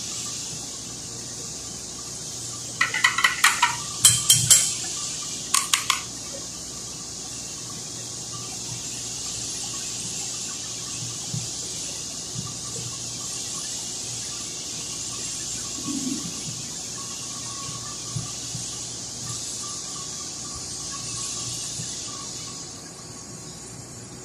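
A hand screwdriver working the screws of a corded electric drill's plastic housing, with faint scrapes and ticks over a steady hiss. About three seconds in comes a quick run of loud sharp clicks in three short groups.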